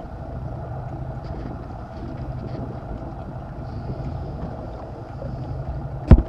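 Boat under way at sea: a steady low engine hum with wind and water rushing past. Near the end come a few sharp knocks, much louder than the hum.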